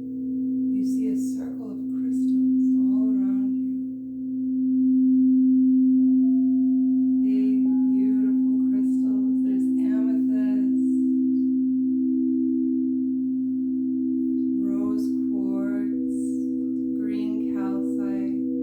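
Singing bowls sounding several steady, overlapping tones that swell over the first few seconds and then hold, with short wordless vocal sounds over them.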